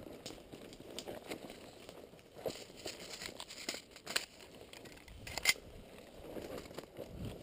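Footsteps crunching and shuffling through dry leaf litter and twigs, with gear and clothing rustling, as players move quickly through the woods. Scattered sharp snaps and clicks run through it, the loudest about five and a half seconds in.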